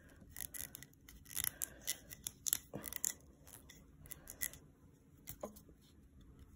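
Faint scattered clicks and scratchy rustles of a plastic diamond-painting applicator pen being handled in the fingers, busiest in the first three seconds, with a few more clicks later.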